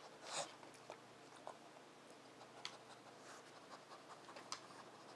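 Faint, scattered scrapes and clicks of a dog nosing at a Nina Ottosson Dog Fighter wooden puzzle board and its wooden blocks, the loudest a short scrape about half a second in.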